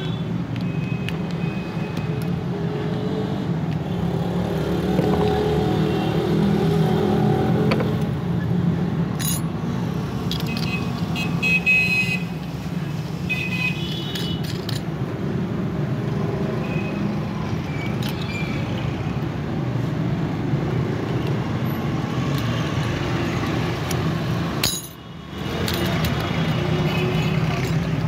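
Steady low rumble of nearby road traffic and engines, with faint metallic clicks and clinks of door-lock parts being handled.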